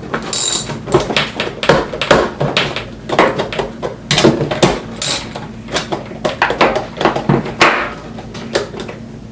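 Roller skate and tools being handled: a quick, irregular run of hard clicks and knocks, thinning out and quieter near the end.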